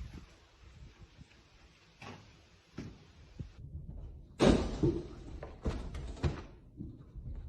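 A sudden loud thump about halfway through, followed by a few lighter knocks.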